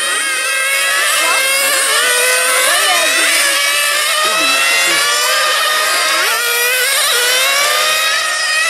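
Several 1/8-scale 4WD nitro radio-controlled racing cars lapping the track together. Their small two-stroke glow engines run at high revs, with many overlapping pitches rising and falling as the cars accelerate and brake through the corners.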